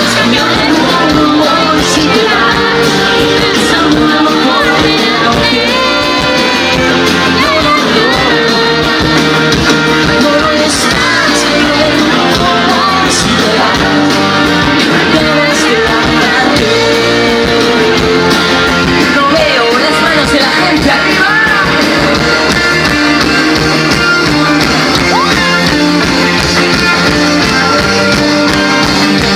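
Live rock band playing loudly, with sung vocals over guitars and drums.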